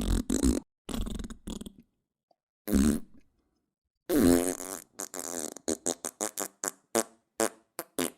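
A string of fart sound effects: a few longer buzzing farts separated by dead silence, then a rapid run of many short ones from about four seconds in.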